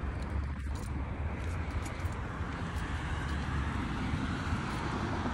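Steady outdoor background noise: a low rumble with a hiss over it, with no single event standing out.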